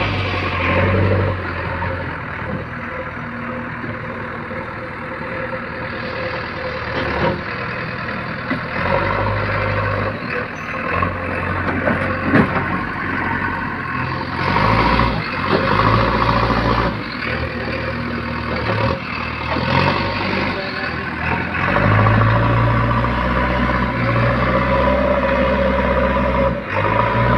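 JCB 3DX backhoe loader's diesel engine running under work, its speed rising and falling several times, with a sharp knock about twelve seconds in.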